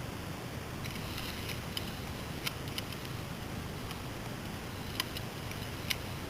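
Steady hiss of outdoor air noise, with a quick cluster of sharp clicks about a second in and a few single sharp clicks later. The sharpest come about two and a half, five and six seconds in.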